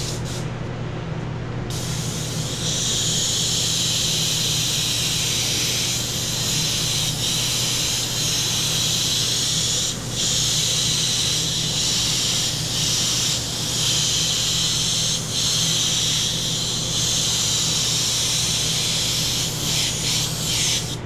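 Airbrush spraying paint: a steady hiss of air and atomised paint that starts about two seconds in. It drops briefly several times as the trigger is eased between passes, and stops shortly before the end.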